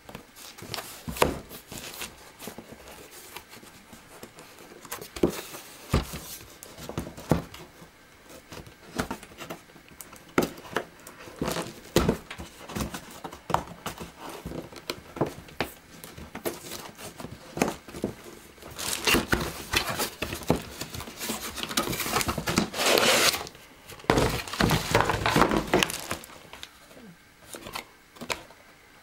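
A cardboard toy box with a clear plastic window being handled and opened: scattered knocks and clicks of the box being turned and set down, then, in the later part, two longer stretches of crinkling and tearing packaging as the inner cardboard tray comes out.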